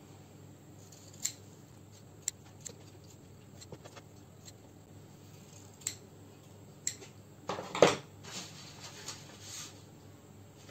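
Small scissors snipping thin paper: a handful of sharp, separate snips. A louder brief rustle comes about three-quarters of the way through, followed by softer rustling.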